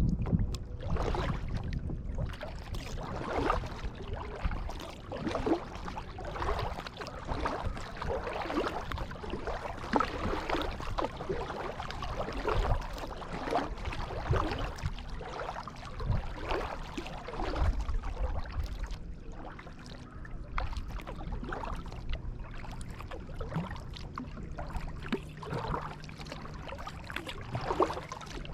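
Kayak paddle blades dipping and pulling through pond water, with irregular splashes and drips at each stroke over a steady low rumble.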